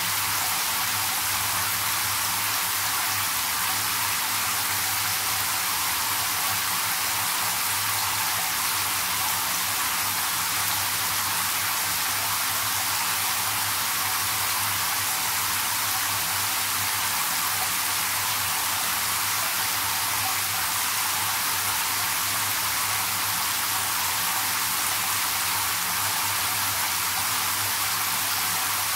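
Handheld shower head spraying into a partly filled bathtub: a steady hiss of water splashing onto the bath water as the tub fills.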